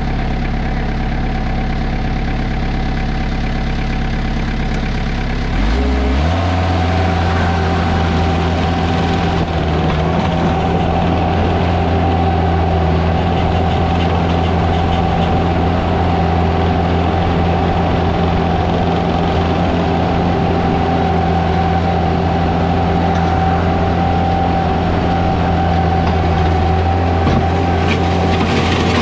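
Skid loader's diesel engine running at low revs, then throttled up about six seconds in and held steady at high revs, with a steady whine over the engine note.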